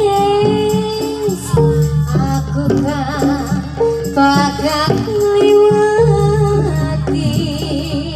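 Amplified gamelan music for a jaranan horse dance. A held, wavering melody line glides down once around two seconds in, over steady low drones and a regular beat, with a shaking rattle sound on top.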